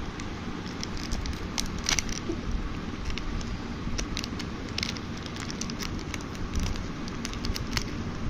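Crinkling and many irregular sharp clicks of a Kinder Joy egg's foil wrapper and plastic capsule being handled and opened.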